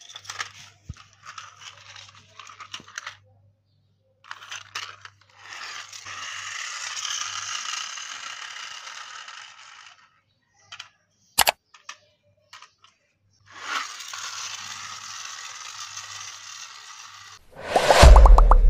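Small toy car's motor and gears whirring in two spells of a few seconds each, with scattered clicks and rattles as a cat paws at it, and one sharp knock about eleven seconds in. Near the end a loud outro sound effect with a deep boom.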